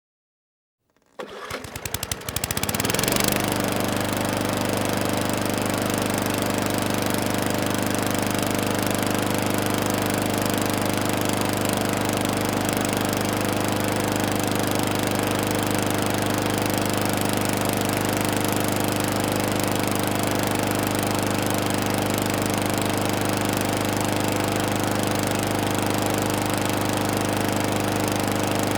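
Lawn mower engine starting about a second in, firing unevenly for a couple of seconds, then settling into steady running.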